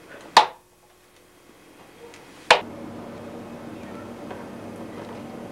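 Two sharp knocks about two seconds apart on an old camcorder home-movie soundtrack. After the second comes a steady tape hiss with a faint hum.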